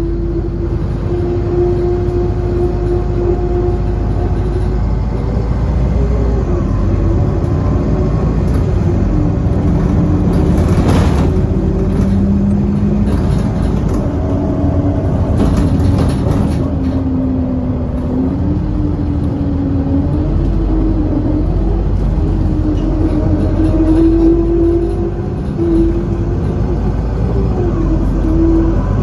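Optare Solo SR bus heard from inside the cabin while driving: the engine and drivetrain drone under load, their note sagging and climbing as the bus changes speed, over steady road noise. A few brief rattles cut through about eleven seconds in and again around fifteen to sixteen seconds.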